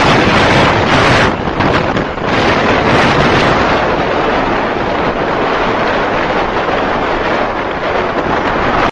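Loud, steady rush of wind and road noise from travelling along a road at speed, with wind buffeting the microphone and no clear engine note. The noise dips briefly about a second in.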